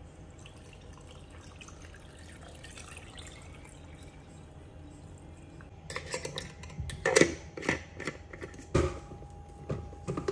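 Water poured into a glass blender jar of sliced ginger and lemon, a faint steady pour. From about six seconds in come a series of clicks and knocks as the lid is fitted and the glass jar is set onto the blender base.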